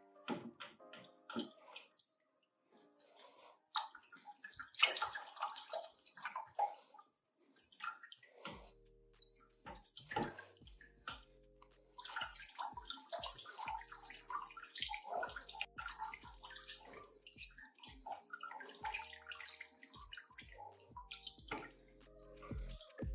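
Dirty rinse water gurgling and splashing out of the cells of an upturned lead-acid car battery into a bucket, in uneven spurts. Soft background music with a steady bass comes in about eight seconds in.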